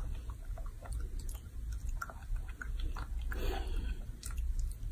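Baby macaque biting and chewing ripe mango flesh: irregular soft smacking clicks of mouth and teeth in the fruit.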